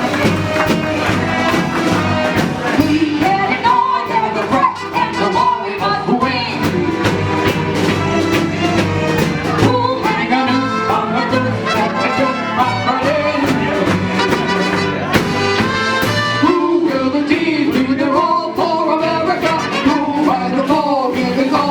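Music with a singing voice over a full band and a steady beat, played throughout.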